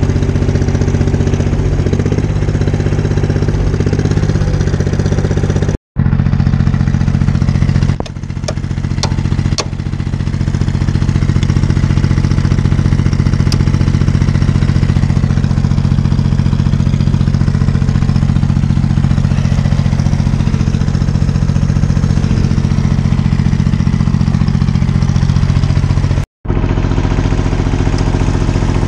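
Small tractor engine idling steadily, with a few sharp metal clinks about eight to ten seconds in as the implement's PTO driveshaft and hitch are handled. The sound drops out completely for a moment twice.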